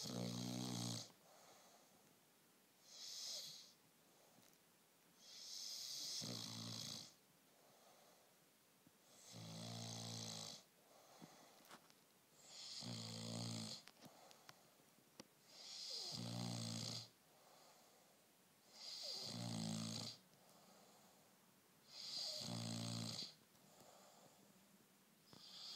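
Bullmastiff puppy snoring in its sleep: a low buzzing snore with a breathy hiss, about one breath every three seconds.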